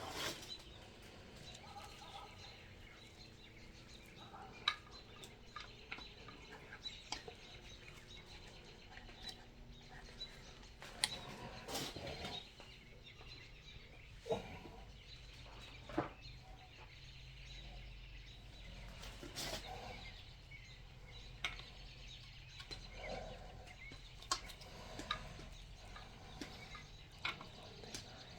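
Scattered light metallic clicks and taps as hydraulic roller lifters are slid into their bores in an LS 5.3 V8 block and handled, over a faint steady background.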